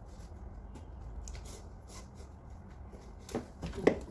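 Faint rustling and ticking of a shoelace being threaded through a sneaker over a low steady hum, then a few sharp knocks of handling near the end, the loudest just before the end.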